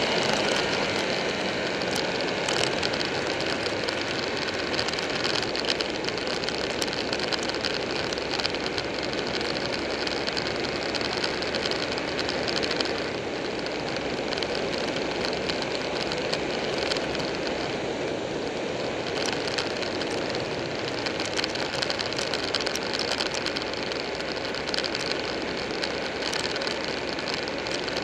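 Buell 1125R motorcycle riding at a steady pace, its 1125 cc V-twin engine running under a steady rush of wind and road noise on the bike-mounted microphone.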